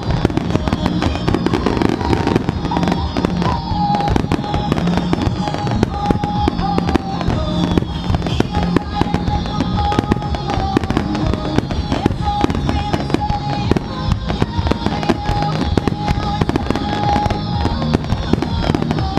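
Fireworks display: a dense, unbroken run of crackles and bangs, with music playing alongside.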